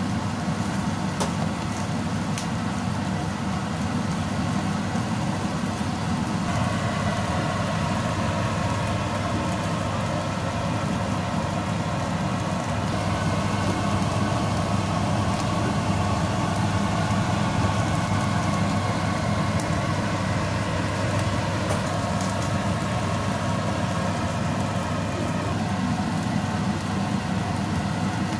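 Steady low mechanical hum, with faint scattered crackles from chicken pieces sizzling on an electric table grill.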